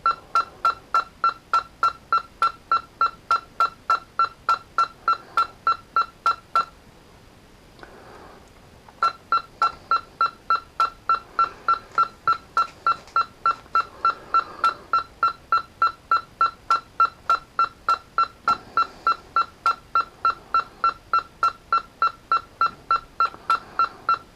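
Kenwood TS-430S transceiver beeping in a steady rapid series, about three short high beeps a second with a faint relay click at each, as the held band UP button steps it through the frequency range. The beeps pause for about two seconds a third of the way in, then carry on. The stepping cycles the receiver filter relays while current flows through their contacts, burning oxidation off them.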